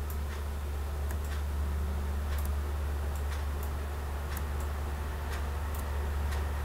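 Computer mouse clicking at irregular intervals, short sharp clicks about one every half second to second, over a steady low electrical hum.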